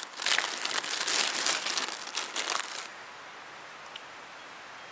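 Clear plastic bag crinkling as it is handled, in a dense crackly run for nearly three seconds, then stopping.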